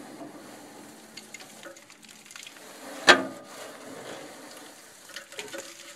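A bottle brush on a twisted-wire handle scrubbing soot out of the rusty heat-exchanger passages of a gas unit heater: a scratchy scraping with scattered small clicks, and one louder knock about three seconds in.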